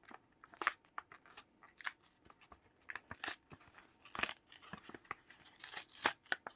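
Crinkling and tearing of a Pokemon card pack's plastic wrapper as it is opened by hand, in irregular crackles.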